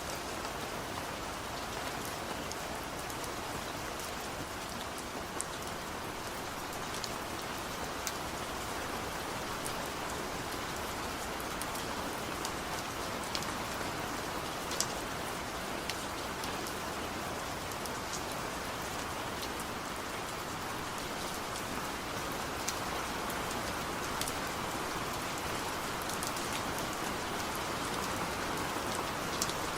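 Steady rain falling, a constant hiss with many scattered sharp taps of individual drops striking close by.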